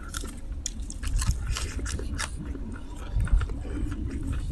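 Close-miked chewing of spicy chicken and rice: irregular wet mouth clicks and smacks.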